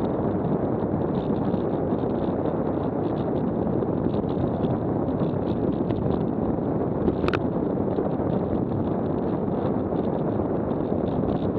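Steady rush of wind on the microphone and rolling noise from a WAW velomobile riding at about 18 mph, with one sharp click about seven seconds in.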